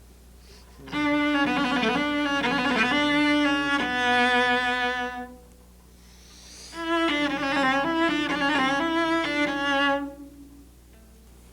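Solo cello playing a short passage twice, each time with a fast, even trill that ends in a turn before settling on held notes.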